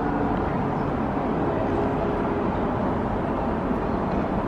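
Steady outdoor city background noise: a constant wash of distant road traffic with no distinct events.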